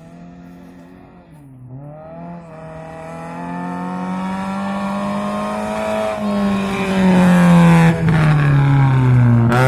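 Rally car engine at high revs, growing steadily louder as the car approaches. The pitch dips once near the start, then climbs, and the note slides slowly lower while the car is at its loudest near the end.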